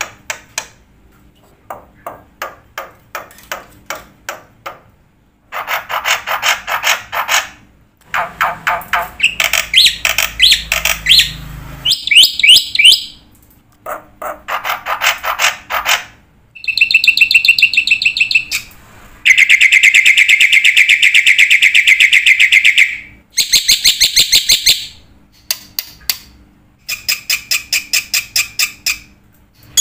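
Bird calls: a run of fast rattling trills and chattering phrases that change pattern every few seconds, with one long dense trill near the middle.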